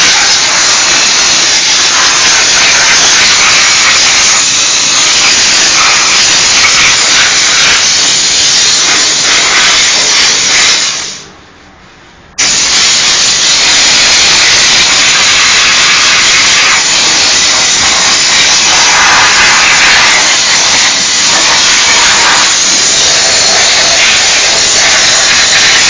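Diesel steam cleaner's lance jetting steam with a loud, steady hiss. Near the middle it dies away for about a second, then comes back on all at once.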